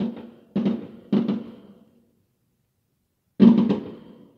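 Aerial firework shells bursting with sharp bangs: one at the start, another about half a second in, and a quick double about a second in. The loudest comes about three and a half seconds in, followed by a few rapid cracks. Each bang trails off over about half a second.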